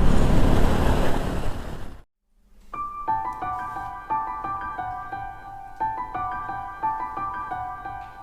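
A steady rush of wind and road noise from the moving motorcycle fades out over the first two seconds. After a brief silence, soft piano background music begins, with gently repeated notes.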